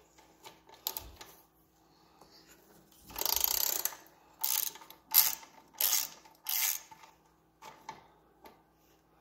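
Ratchet wrench worked back and forth on a bolt of a motorcycle frame. About three seconds in comes a run of clicking strokes, roughly two a second, as the bolt is turned loose.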